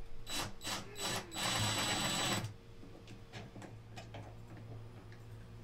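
DeWalt cordless drill/driver driving a screw: a few sharp clicks, then the drill runs for about a second, followed by light scattered ticks.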